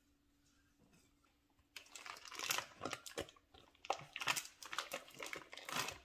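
Foil wrapper of a block of cream cheese crinkling as it is peeled open, a dense run of rustles starting about two seconds in.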